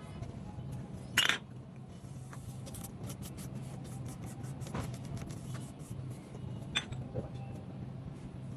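Small metal pieces clinking and tapping, with the loudest clink about a second in and a few more later, over a steady low hum.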